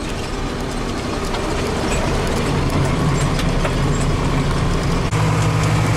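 Farm machinery engine running steadily under load, its note shifting and getting a little louder about five seconds in.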